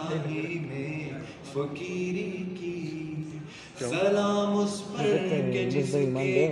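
A man singing a devotional Urdu salaam through the hall's microphone and loudspeakers, with long held notes that bend into melismatic turns. A pause near the middle, then a new, louder phrase.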